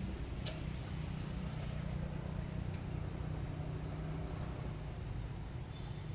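A steady low engine hum, like a motor idling, with a single sharp click about half a second in.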